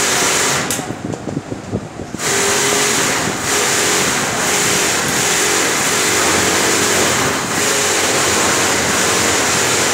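Steady, loud mechanical whirring and rattling of workshop machinery, with a faint repeating hum in it. It turns muffled and uneven for about a second and a half soon after the start.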